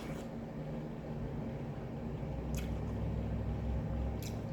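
Wet, squishy chewing of juicy watermelon close to the microphone, with a few sharp clicks and a low rumble near the end.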